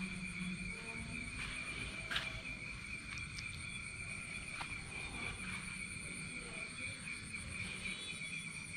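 Night insects, crickets among them, chirping in a steady high-pitched chorus. A single sharp click cuts through about two seconds in.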